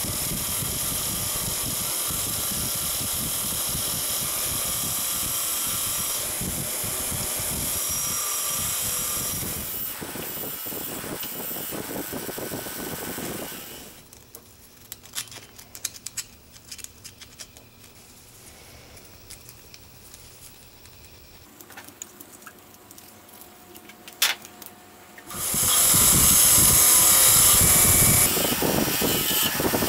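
A Delta bench grinder running with a steel jack part held against its spinning wheel, a steady loud whir and hiss that stops about fourteen seconds in. Then quieter, scattered clicks and scrapes of a pointed steel pick working at a small forked steel part, until the grinder runs again about twenty-five seconds in, louder than before.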